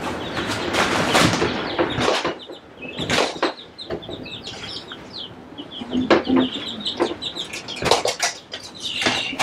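Baby chicks peeping: many short, high cheeps throughout, broken by several loud rustles and knocks.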